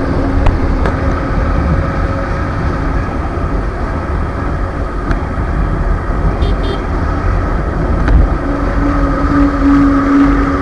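Wind rush and low road rumble on the microphone of a Suzuki two-wheeler riding at about 60 km/h in highway traffic, with a faint steady engine drone. A stronger held tone comes in about eight and a half seconds in.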